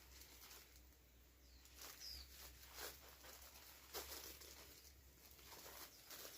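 Faint rustling and crackling, with one short high bird chirp about two seconds in.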